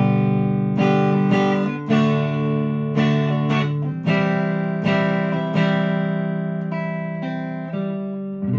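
Fender Player Telecaster with Seymour Duncan pickups, played clean through a Vox AC10 amp miked with an SM57: chords and notes picked about once a second, each ringing on into the next.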